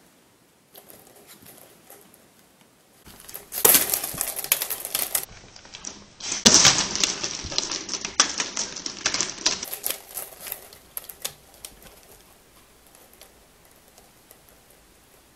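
Vertical window blinds clattering in a rapid run of clicks and rattles as a Pomeranian puppy thrashes about in its bed against them. Faint at first, loudest from about three to ten seconds in, then dying down to scattered taps.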